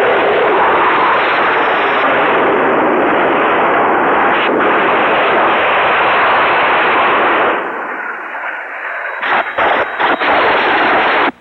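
Film battle sound effects: a loud, continuous roar of explosions and gunfire, which thins about three-quarters of the way through into the rush of a jet fighter, with a few brief dropouts, then cuts off suddenly.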